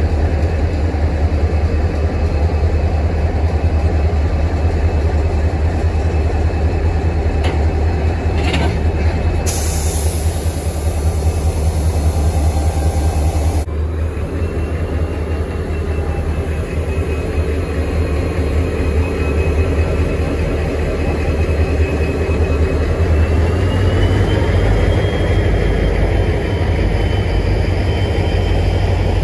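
Train running with a heavy, steady low rumble. A sharp hiss lasts about four seconds, a third of the way in, and a thin high whine sounds through the second half.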